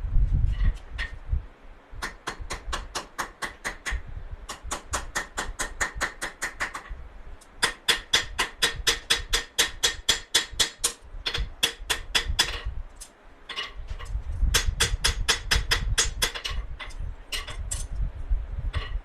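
Hand hammer striking hot coil-spring steel on an anvil, drawing out the tip of a knife blade. The blows come in quick runs of about four to five a second, with short pauses between runs and a low rumble under the later blows.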